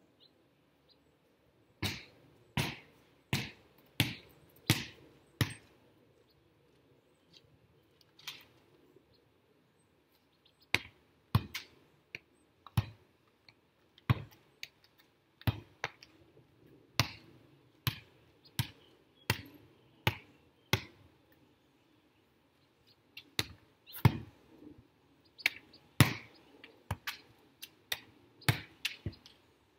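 A volleyball being hit over and over with the hands and forearms: sharp slaps about two every one and a half seconds, in three runs with short pauses between.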